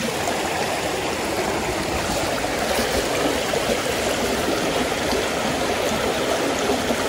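Small mountain creek babbling over rocks in a shallow riffle, a steady rush of running water.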